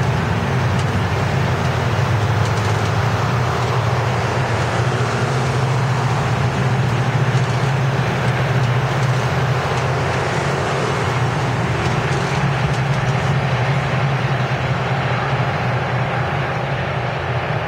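MARC commuter train moving away: the diesel locomotive's engine drones steadily under the rumble of the passenger cars' wheels rolling on the rails, easing slightly near the end.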